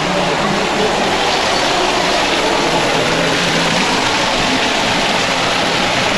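Steady, unbroken rush of running water, like a waterfall feeding a turtle pond.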